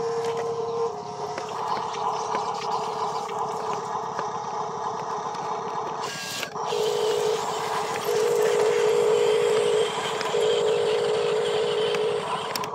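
Huina RC dump truck's electric drive motor and gears whining as it drives, a steady pitched whine that comes and goes in stretches of a second or two, strongest in the second half.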